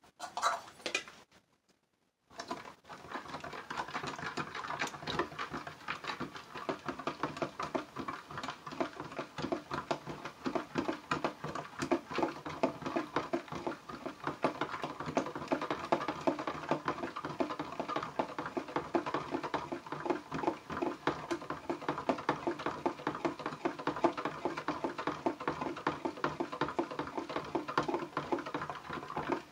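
Rapid stirring of soap oils in a plastic measuring pitcher, the utensil ticking and scraping quickly and steadily against the plastic sides, starting about two seconds in.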